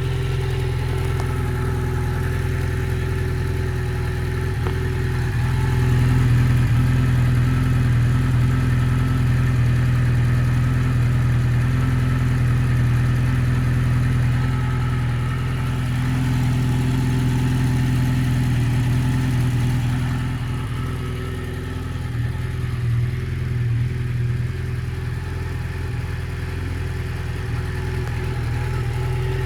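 Honda CB750F Bol d'Or's air-cooled inline-four engine running steadily, held at slightly higher revs from about six seconds in, then settling back toward idle about twenty seconds in. The freshly renovated engine runs without rattling.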